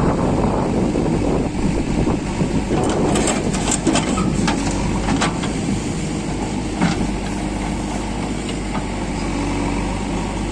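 Diesel engines of a tractor and a backhoe loader running steadily while the loader tips soil into a tractor trolley, with a cluster of sharp clatters about three to five seconds in and one more knock near seven seconds.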